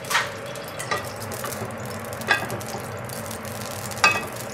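Oil sizzling steadily in a hot frying pan on a gas range, with four short clinks and knocks from the pan or utensils, the loudest near the end.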